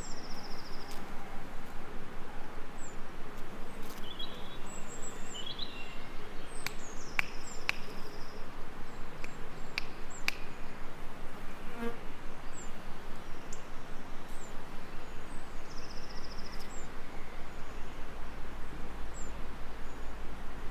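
Bees buzzing steadily, with small birds chirping and trilling now and then above the buzz, and a few sharp clicks near the middle.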